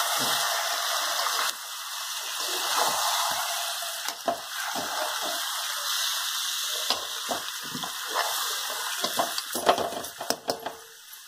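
Fish pieces coated in chilli powder being stirred in a steel pan, with soft irregular knocks and scrapes against the metal over a steady hiss. The hiss eases a little after a second or so, and the knocks come thicker near the end.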